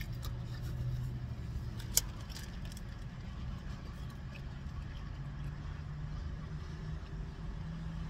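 Steady low rumble of road traffic from a nearby highway, with one sharp click about two seconds in and a few fainter clicks.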